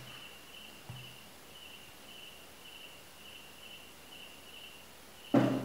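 A cricket chirping steadily in the background, a short high chirp about three times a second. Shortly before the end a brief, louder thump cuts in.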